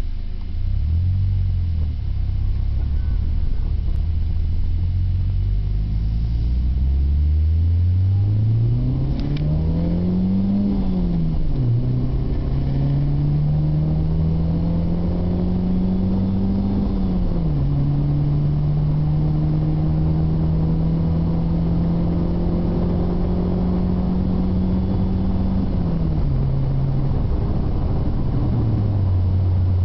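2005 Dodge Neon SXT's 2.0 L SOHC four-cylinder through a Magnaflow cat-back exhaust, heard from inside the cabin with a deep tone. It accelerates with rising pitch through two upshifts, about ten seconds and seventeen seconds in, then cruises with a slowly climbing pitch before easing off in two steps near the end.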